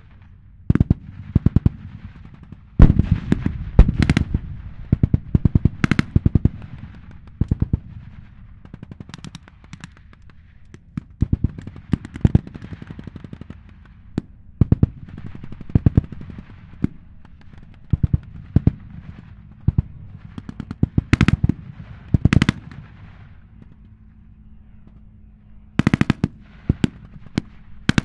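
Short bursts of machine-gun fire, several rapid rounds at a time with single louder shots between, over the steady low running of M4 Sherman tank engines. The loudest bursts come about three to four seconds in and again around twenty-one and twenty-six seconds in.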